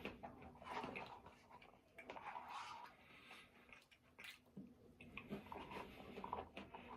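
Faint, close-miked chewing and wet mouth clicks of someone eating.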